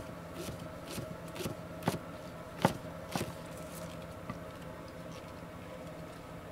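Chef's knife chopping spring onions on a wooden cutting board: about half a dozen irregular knocks of the blade hitting the board, the loudest nearly three seconds in, thinning out after about three and a half seconds.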